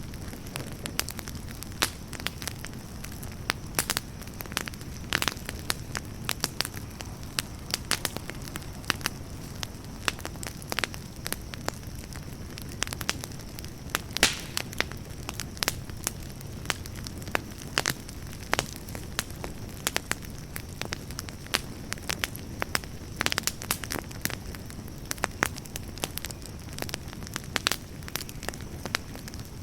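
Campfire burning with a steady low rush of flames and frequent irregular crackles and pops of burning wood, a few sharper snaps standing out.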